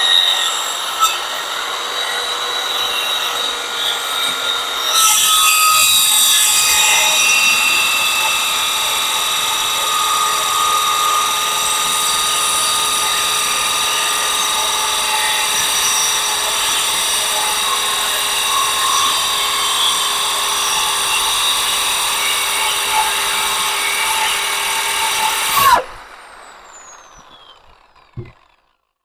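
Electric drill spinning a metal-cutting blade through a small iron rod: a steady, high machine whine with a gritty cutting noise, growing louder about five seconds in. Near the end the drill is switched off and the whine falls away as the blade spins down, followed by a single knock.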